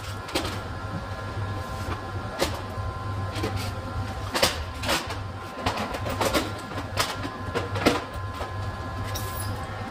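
An electric drill runs steadily as it drills out a broken exhaust-manifold bolt with a 5 mm bit. Irregular sharp clicks and ticks sound over the steady motor hum.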